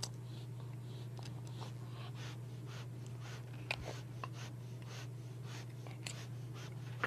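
Steel dental hand scaler scraping plaque off a dog's back tooth: a run of faint short scrapes, about two or three a second, with one sharper click near the middle, over a steady low hum.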